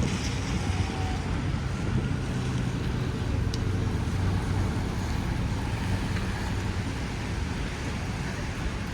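Steady city street traffic rumble with wind noise on the microphone, and one brief sharp click about three and a half seconds in.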